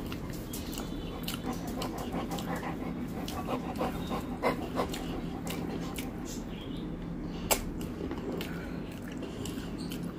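Hand-eating sounds: fingers mixing rice and curry on a steel plate and chewing, with many short clicks and smacks, the loudest a sharp click about seven and a half seconds in. A steady low hum runs underneath.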